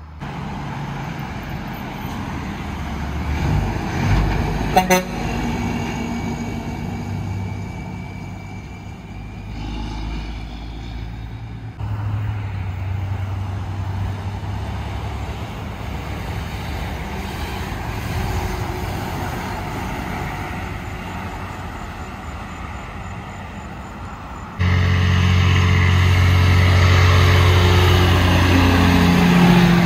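Semi-trucks and cars passing on a highway, diesel engines running with tyre noise, with a short loud burst about five seconds in. Near the end a semi-truck passes close, its engine louder and dropping in pitch as it goes by.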